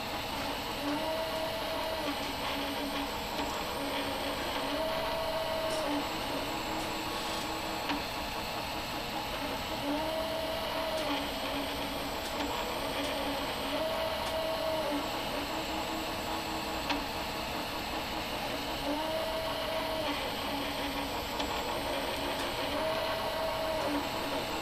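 Stepper motors of a laser engraver's gantry whining as the laser head rasters back and forth, each pass a pitch that rises, holds and falls, repeating about every four to five seconds over a steady whir.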